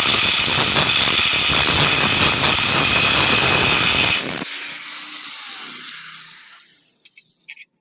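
Angle grinder cutting through steel angle iron, a loud rough grinding. About four seconds in it is switched off, and its whine falls away as the disc spins down.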